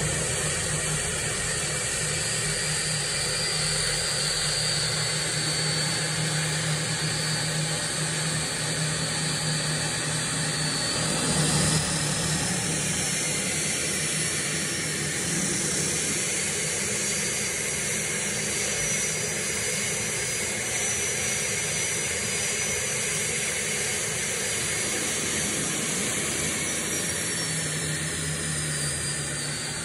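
Turbomeca Turmo III C6 turboshaft engine running in a race boat, a steady hissing rush with a high turbine whine. The whine climbs a little about twelve seconds in and eases back down near the end.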